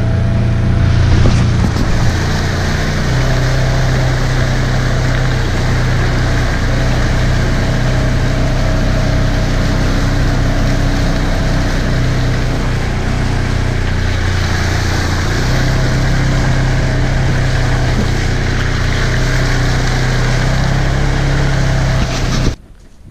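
A side-by-side utility vehicle's engine running under way, its pitch shifting a few times with speed, with tyres splashing through muddy water and the chassis rattling over rough ground. It cuts off abruptly near the end.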